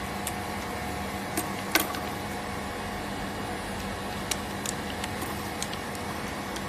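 Steady hum of a running ultra-low-temperature freezer separator's refrigeration compressor, with a few sharp clicks and taps of small tools on screen glass, the loudest just under two seconds in.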